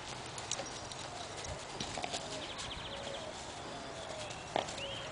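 Soft, scattered taps and rustles of a Great Dane puppy's paws on grass as it trots about and noses a soccer ball, over faint outdoor background, with two short bird-like chirps near the end.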